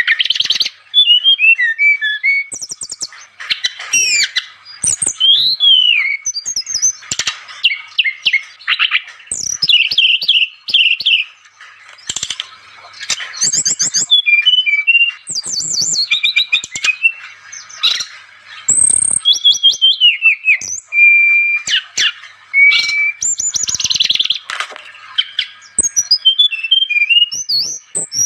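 Sikatan rimba dada coklat (brown-chested jungle flycatcher) in full song. It gives a fast, varied run of chirps, trills, falling notes and clear whistles, phrase after phrase with only short gaps.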